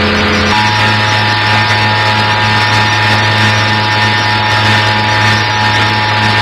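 Emergency Alert System attention signal: the steady two-tone alarm (853 and 960 Hz) broadcast over FM radio for a required monthly test, with a low buzz beneath it.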